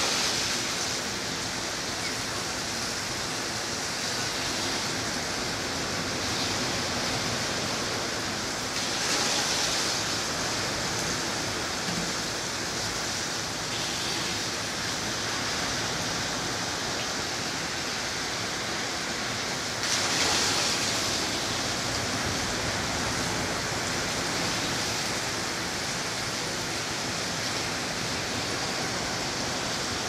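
Ocean surf breaking on a sandy beach, heard as a steady wash of noise that swells a little louder twice.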